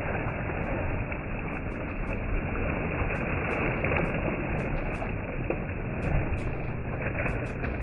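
A swimmer's arm strokes and kicks splashing through pool water: a continuous wash of churning water with irregular sharp splashes.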